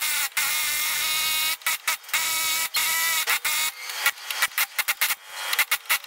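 Pneumatic air chisel hammering at a lower control arm's ball-joint rivet, with the metal ringing. Two long runs of hammering give way, after about three and a half seconds, to short stop-start bursts: the rivet is not giving way.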